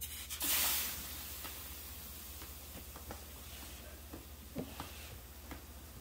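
Hot steam iron pressed onto a wet towel: a loud burst of steam hiss about half a second in, settling into a steady hiss with a few faint clicks.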